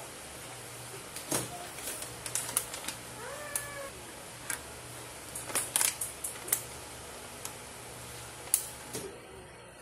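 Scattered sharp taps and clicks of kitchen handling in small clusters: chocolate tablets set down into an empty aluminium saucepan and their wrappers handled, over a low steady hum. About three and a half seconds in comes a short cry that rises and falls, like a cat's meow.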